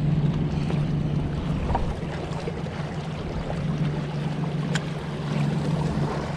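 Sea water lapping and sloshing against jetty rocks, with wind on the microphone and a steady low drone underneath. A single faint click sounds about three-quarters of the way through.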